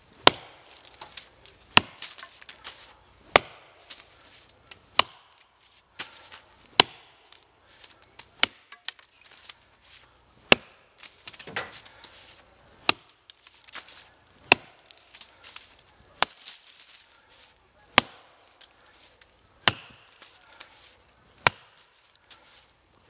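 Double-bit axe chopping into an oak root at the base of the tree, one sharp strike about every second and a half to two seconds, around a dozen in all, severing the root.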